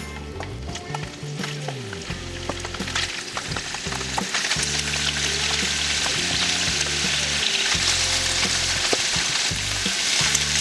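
Boiled beef frying in a pan: a sizzle that grows louder about three seconds in, with the clicks of a utensil stirring it against the pan.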